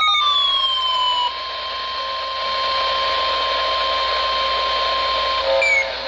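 NOAA Weather Radio warning alarm tone (the 1050 Hz attention tone) for a Severe Thunderstorm Warning, one steady high beep held for about five seconds over radio hiss, played through a Midland weather radio's speaker. A few falling tones fade out within the first second, and near the end the beep stops and a different set of tones takes over.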